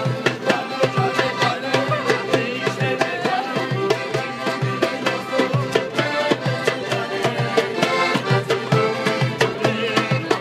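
Street band playing a lively folk tune on clarinet, accordion and acoustic guitar over a steady beat on a small hand drum.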